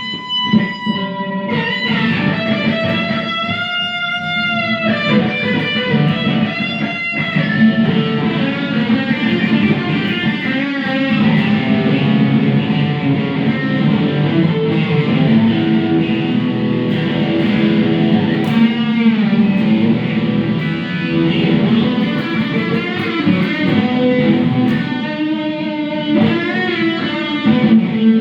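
Electric guitar played through a Boss Katana amp run into a Fender Acoustasonic amp. It opens with a few long held notes that waver in pitch, then moves into quicker runs of notes.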